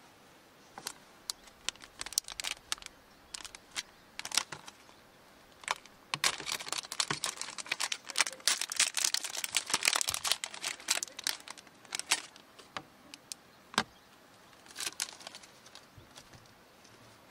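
Plastic packaging crinkling and crackling as a small packet is unwrapped by hand, with scattered clicks at first; the crackling is densest through the middle and dies down to a few clicks and a brief crinkle near the end.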